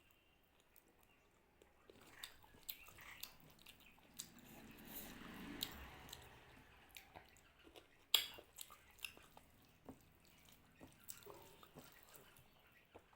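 Close-up eating sounds of a mouthful of rice and mutton curry being chewed: soft wet smacks and clicks, starting about two seconds in, with one louder click about eight seconds in.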